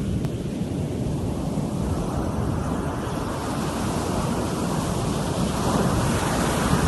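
Ocean surf breaking on a sandy beach: a steady wash of waves that swells louder near the end.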